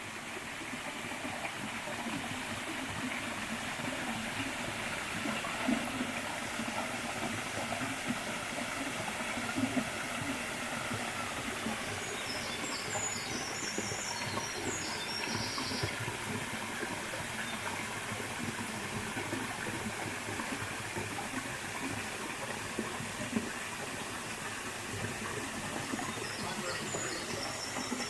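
Mountain valley stream running over rocks: a steady rushing of water.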